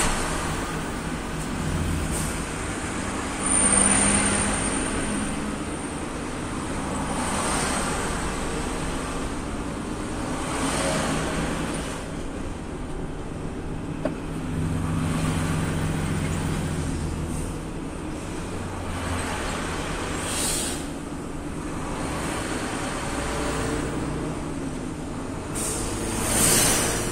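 Renault 440 truck's diesel engine running at low road speed, heard from the cab. Oncoming lorries pass close by in brief rushing swells several times, the loudest near the end.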